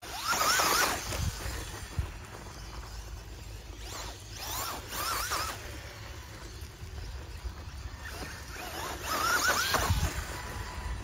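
Losi Promoto-MX RC dirt bike's brushless electric motor whining, its pitch rising and falling three times about four and a half seconds apart as the bike laps, over a steady low rumble. A single knock about two seconds in.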